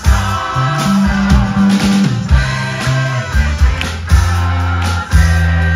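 A live rock band playing: electric guitar, bass guitar and drum kit, with voices singing. A prominent, moving bass line sits under regular drum hits.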